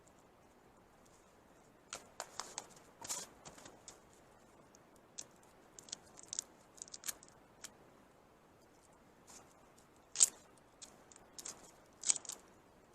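Scattered short cracks and crunches of sticks and snow being handled while a campfire is laid on snow, with the sharpest snap about ten seconds in and another near the end.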